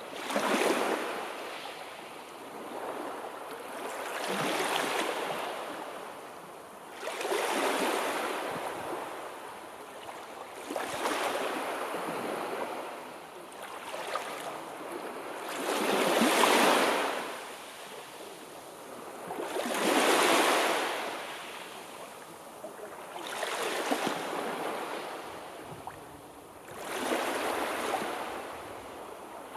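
Sea waves surging in and washing back, each wave swelling and fading every three to four seconds.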